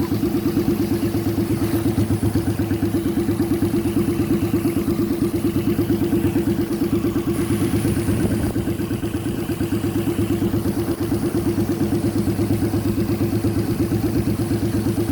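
Small car engine fitted in a custom motorcycle, idling steadily with an even pulsing exhaust beat that does not change in pitch.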